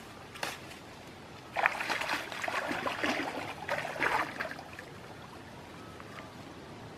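Leafy branches rustling as leaves are pulled and stripped off a bush by hand. It is a dense crackling stretch of about three seconds, starting a second and a half in, over a faint steady hiss.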